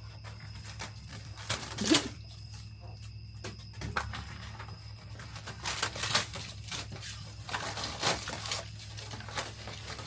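Irregular knocks, cracks and rattles of old RV interior paneling being pried and torn out, with debris falling. The loudest strikes come about two seconds in, then around six and eight seconds, over a steady low hum.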